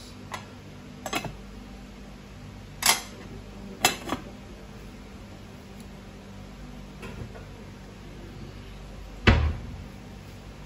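Kitchen clatter: a scatter of sharp knocks and clinks of items being handled and set down, the loudest a heavy thud about nine seconds in, over a steady low hum.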